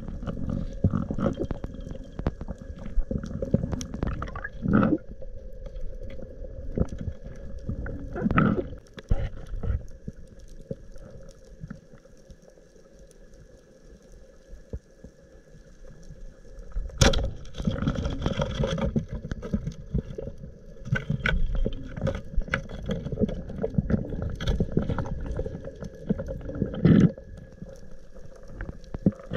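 Muffled underwater noise heard through an action-camera housing as a diver swims over a reef: low rumbling surges of water movement, with sharp clicks and knocks, the loudest about 17 seconds in and near the end. There is a quieter stretch around the middle.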